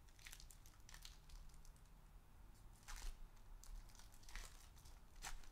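Foil wrapper of an Upper Deck SPX hockey card pack being torn open and handled: faint, scattered crinkles and rips, the loudest about three seconds in and again near the end.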